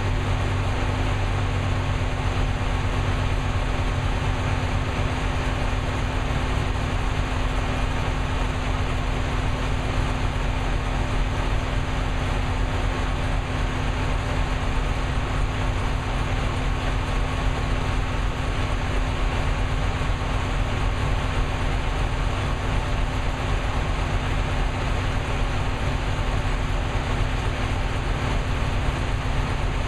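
Carbureted car engine with a solid-lifter camshaft idling steadily, its valve lash freshly set hot to .014 in.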